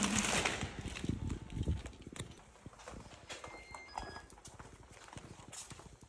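Footsteps on a tiled floor: irregular soft knocks, stronger in the first couple of seconds and then fainter.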